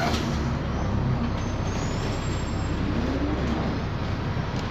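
A BMC Belde CB city bus with a Cummins ISBe 6.7 diesel and a ZF Ecomat 6HP504C automatic gearbox, heard from inside the cabin while driving: a steady low rumble of engine and road. A faint tone rises in pitch about halfway through.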